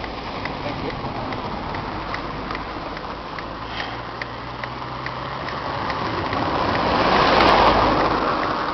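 Steady rushing noise of a mountain bike riding over a wet, muddy trail, with a light regular ticking about three times a second. It swells louder about seven seconds in, then eases off.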